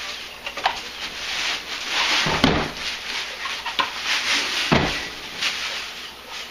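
Packaging rustling and scraping as a boxed benchtop belt and disc sander is handled, with two dull thumps about two and a half and five seconds in and a few lighter knocks.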